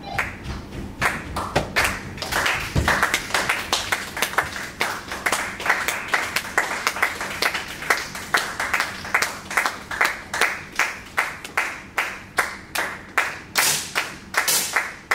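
Spectators clapping together in a steady rhythm, about two to three sharp claps a second.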